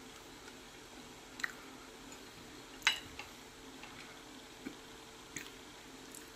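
Quiet chewing and wet mouth sounds of someone eating a mouthful of pasta salad. A few light clicks and taps are scattered through it, the sharpest nearly three seconds in, over a faint steady hum.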